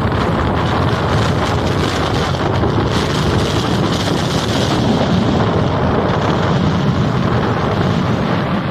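Rough sea surf breaking and washing in a continuous roar, with strong wind buffeting the microphone. The hiss swells for a moment a few seconds in.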